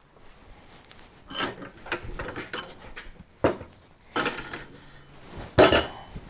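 Metal parts of a trailer jockey wheel being handled and fitted back together: a series of separate clanks and knocks with scraping between them, the loudest clank near the end.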